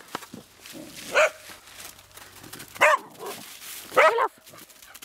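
A dog barking in short loud barks: one a little over a second in, another near three seconds, and a quick double bark about four seconds in, with leaves rustling underfoot between them.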